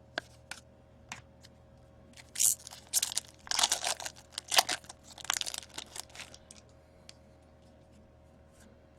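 A hockey card pack's wrapper being torn open and crinkled in bursts from about two and a half to six seconds in, with light clicks of card handling before and after. A faint steady hum sits underneath.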